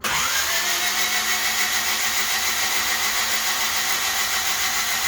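Honda D16Z6 engine spun over on its starter motor with the spark plugs out and ignition disconnected, priming the oil pressure. The starter's whine rises in the first half-second, then holds a smooth, steady whirr with no firing.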